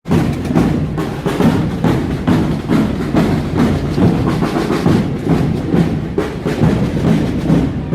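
Many drums beaten together by a marching drum group: a dense, steady rhythm of snare-type drum strokes over heavier bass-drum beats, about two strong beats a second.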